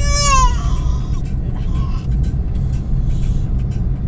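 Steady low rumble of a road vehicle on the move, heard from inside. Right at the start there is a brief high-pitched vocal squeal that falls in pitch.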